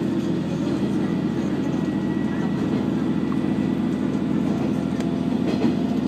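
Inside a KiHa 120 diesel railcar running along the line: a steady low diesel engine drone with running noise from the car, and one brief click about five seconds in.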